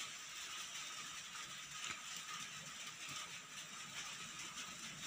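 Faint steady background hiss with a few faint ticks.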